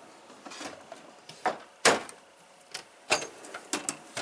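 A series of sharp, irregular clicks and knocks from tools and cases being handled in a mechanic's toolbox, the loudest about two seconds in.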